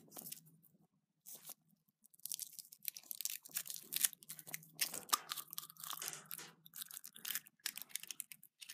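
Foil wrapper of a Kinder Surprise chocolate egg being unwrapped, crinkling and tearing in quick irregular crackles that begin about two seconds in.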